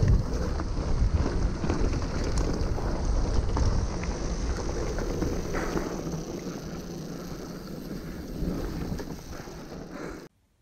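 Wind buffeting a helmet-mounted microphone while mountain bike tyres roll and rattle down a dirt trail. The noise eases off gradually and cuts off abruptly shortly before the end.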